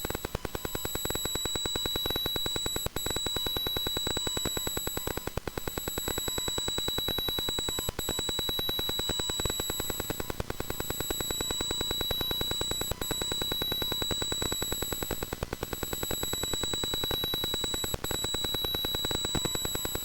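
Electrical noise coming through V-Moda headphones: a steady high-pitched whine over a fast, rattling buzz of clicks, with the level dipping briefly every two to three seconds.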